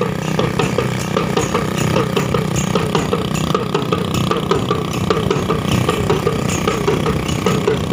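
Motorcycle engine running steadily while towing a wooden cart, with a constant clatter of short knocks and rattles from the cart.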